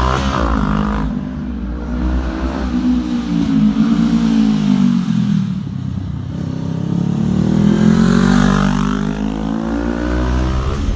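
2018 Honda Rebel 500's parallel-twin engine revved up and down through the exhaust, engine speed rising and falling slowly about twice.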